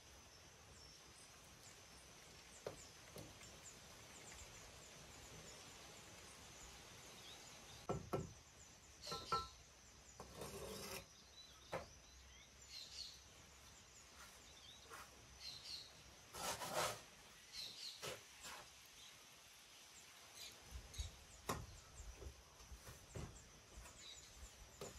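Faint scraping and knocking of a trowel, mortar and hollow ceramic bricks as blocks are set one on another on top of a brick wall, in scattered short clusters over a quiet outdoor background.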